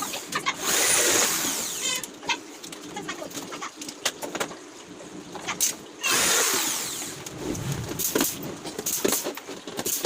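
Power drill running in two short bursts, its motor pitch sliding as it speeds up and slows, with scattered knocks and clicks of work between bursts.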